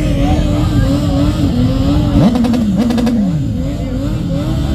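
Motorcycle engine running close by, its pitch wavering slightly. About two seconds in the revs dip and climb back, with a few sharp crackles.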